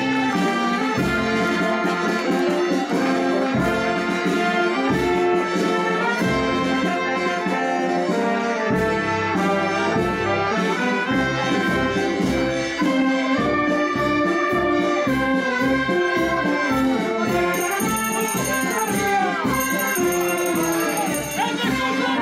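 Brass band playing a march, with trombones and trumpets over a steady low beat.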